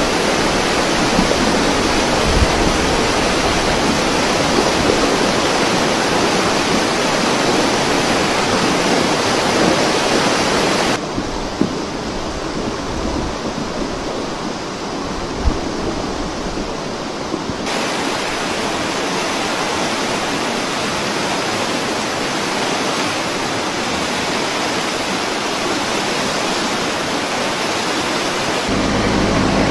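Brown floodwater rushing and churning, a steady loud roar of water. For several seconds in the middle it turns quieter and duller, and a vehicle engine starts to be heard near the end.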